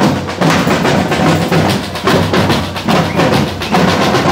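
Street drum band playing a fast, loud, driving rhythm, the strokes coming thick and without pause.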